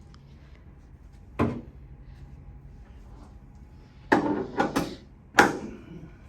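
Sharp clunks from a chiropractic adjustment on a treatment table: one about a second in, then a quick run of four near the end.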